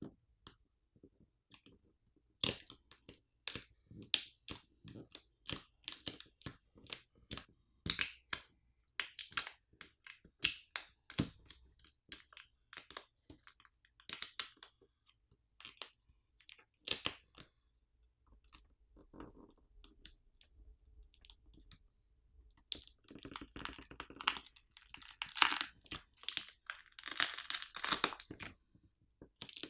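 Smartphone battery's clear film pull pouch crinkling and its adhesive crackling as fingers pull and peel the battery up from the frame. Scattered short crackles and clicks become denser, longer stretches of crackling near the end.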